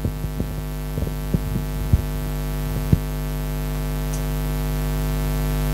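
Steady electrical mains hum with a buzz of many overtones, growing slowly louder, with a few short knocks in the first three seconds.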